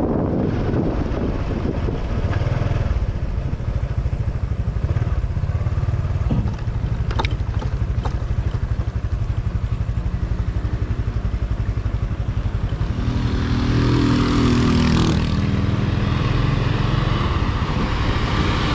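Honda XRM 125 Fi's single-cylinder four-stroke engine running steadily as the motorcycle rides downhill, heard from the bike itself. Two sharp ticks come about seven and eight seconds in. From about thirteen seconds in, a louder pitched engine note rises in over the rumble.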